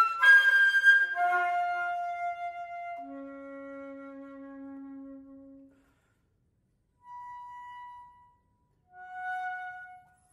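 Solo concert flute: a few loud notes stepping down in pitch, then a long low note that fades away. After a pause of about a second, two soft, separate higher notes follow near the end.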